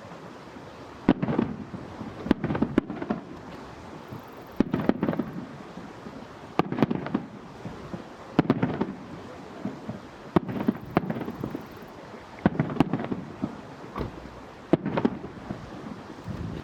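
Aerial fireworks shells bursting in quick succession: sharp bangs every second or two, each followed by a rolling echo and some crackle.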